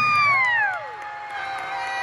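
Crowd cheering a basketball win, with one loud whooping yell whose pitch falls away over the first second, then a long held yell.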